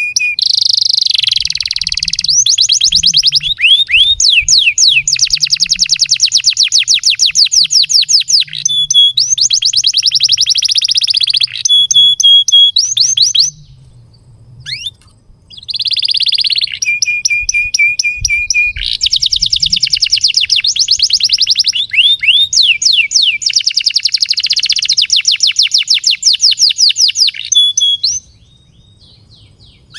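Domestic canary singing a long song of fast trills and rolls, rapid strings of repeated notes. There is a short pause about halfway and another near the end.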